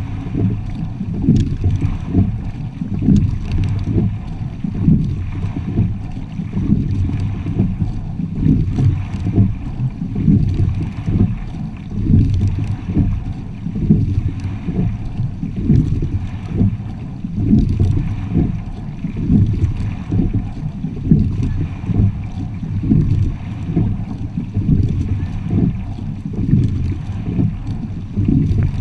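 Water rushing along the hull of a sculling quad under way, mixed with wind noise on the microphone, surging in a regular rhythm about every two seconds with the rowing stroke.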